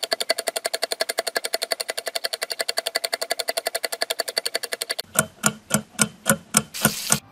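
Background music: a fast, even staccato pulse of about a dozen beats a second that changes about five seconds in to a slower, heavier beat of about four a second.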